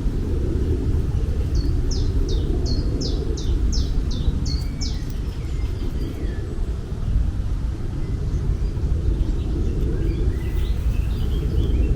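A bird calls a quick series of about nine short, high, falling notes, with fainter chirps near the end, over a steady low outdoor rumble.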